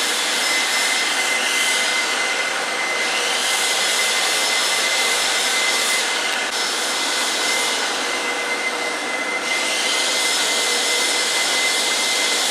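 A machine running steadily with a loud rushing, blower-like noise and a constant high-pitched whine; the hiss swells and eases every few seconds.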